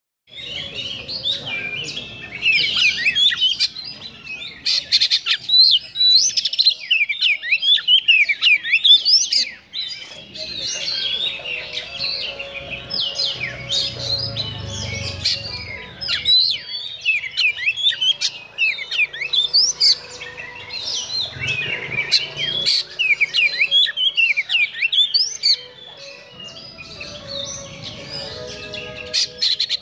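Oriental magpie-robin singing a long, nearly unbroken song of rapid, varied whistles mixed with harsh, rasping notes.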